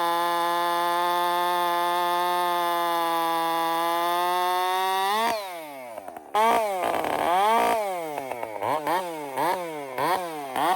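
Chainsaw fitted with an Oregon 72EXJ full-chisel, full-comp chain running flat out at a steady pitch through a cut for about five seconds. The pitch then jumps as the bar breaks free and drops away. After that the throttle is blipped up and down repeatedly, a little under twice a second.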